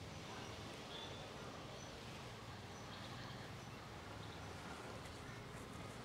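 Faint forest ambience: a steady low hiss with a few short, high bird chirps scattered through it.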